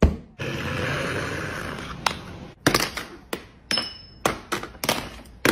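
A sharp hit, then about two seconds of rustling noise, then a string of sharp knocks, roughly two or three a second, with a brief high beep near the four-second mark.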